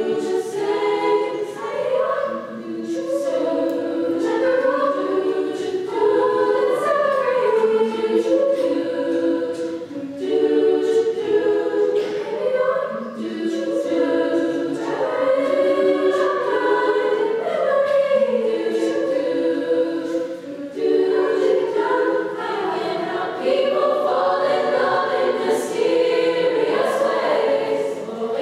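Vocal group singing a cappella in close harmony, barbershop style, with several voices moving together on held chords and the words sung together.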